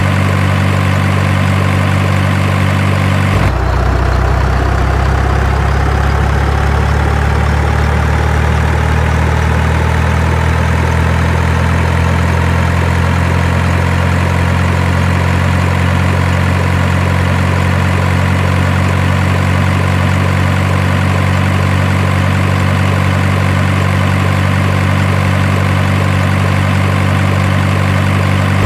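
Heavy diesel truck engine sound running steadily. About three seconds in it switches abruptly to a deeper running note, with a faint whine slowly rising above it.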